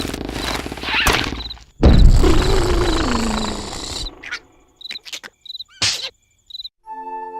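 Cartoon sound effects: a loud impact about two seconds in with a falling tone after it, then cricket chirps and a few sharp clicks in the quiet gap, and held music notes starting near the end.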